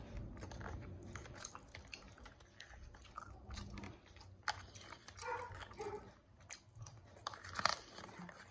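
Close mouth sounds of a man chewing a forkful of mac and cheese: many small, irregular wet clicks and smacks.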